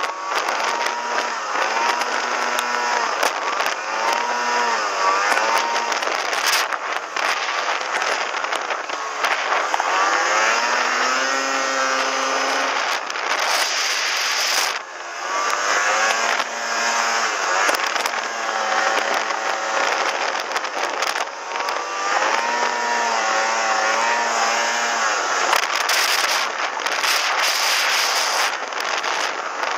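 Snowmobile engine revving up and down again and again as the sled carves turns on slush, the pitch climbing and dropping with the throttle. A steady rushing hiss runs underneath, with occasional knocks on the microphone.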